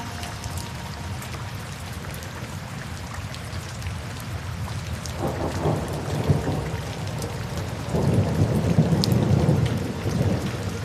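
Steady rain with rolling thunder: a first rumble builds about five seconds in, and a louder one follows from about eight seconds and dies away near the end.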